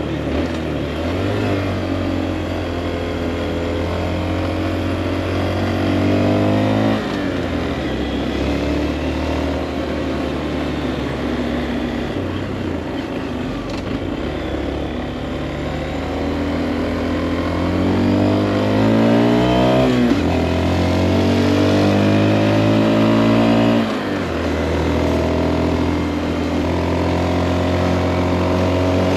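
Honda Monkey's single-cylinder four-stroke engine under way, its pitch climbing through each gear and dropping sharply at upshifts about seven, twenty and twenty-four seconds in.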